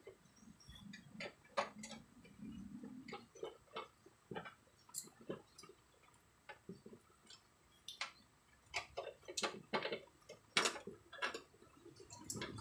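Faint, irregular clicks and taps of hand tools and small metal parts against a sheet-metal enclosure panel as potentiometers are fitted to it, coming more densely near the end.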